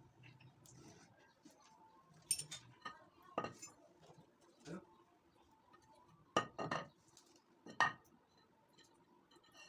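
Irregular sharp metal clinks and knocks, about half a dozen spread over several seconds, from hard pump parts and tools being handled and set down on a bench.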